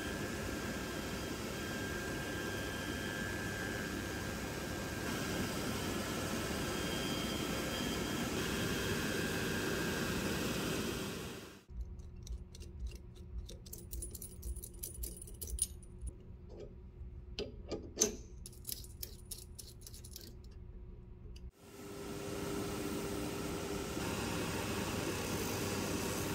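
Shoe edge-trimming machine running steadily, its spinning cutter wheel working the sole edge of a leather boot. About halfway through the running cuts off abruptly and small metallic clicks and clinks follow as the toothed cutter head is handled and changed by hand, the loudest a sharp clink near the end of that stretch; then the machine runs again for the last few seconds.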